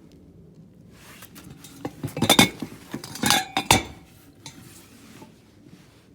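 Metal tools clanking and clinking in two quick clusters of knocks, about two seconds in and again around three seconds in, one of them leaving a short metallic ring.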